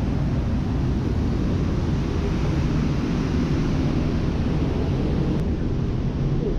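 Steady low rumble of a car ferry's engines and onboard machinery.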